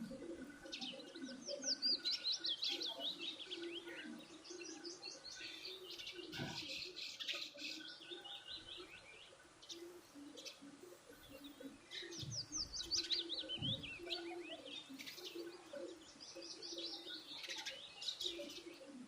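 Small birds chirping: four runs of quick, high chirps that fall in pitch, a few seconds apart, over fainter low calls.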